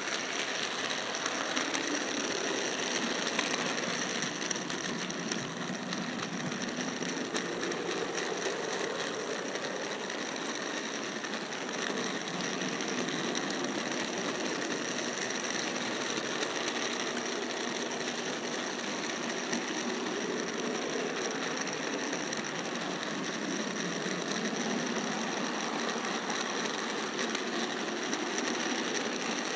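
Model train running along the layout's track: a steady mechanical whirring with fine, rapid clicking from the wheels and running gear.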